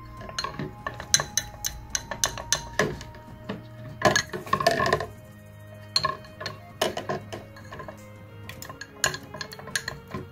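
Wooden stirring stick clinking and tapping irregularly against a small glass beaker while salicylic acid is stirred into castor oil to dissolve it, with a busier run of clinks about four seconds in. Soft background music plays underneath.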